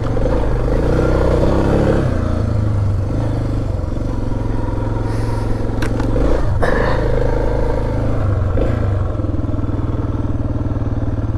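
Suzuki DR650's single-cylinder four-stroke engine pulling under throttle, its note shifting as the rider works the throttle, with two sharp knocks a little past halfway.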